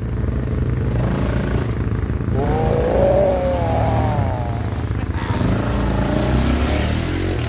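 ATV engine running as the quad drives through water, with water splashing and hissing around the wheels. A person's voice calls out in a long wavering shout about midway.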